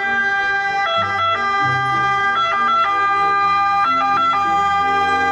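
Toy ambulance's electronic sound module playing a tinny siren, its tones stepping back and forth between pitches every fraction of a second over a lower run of notes.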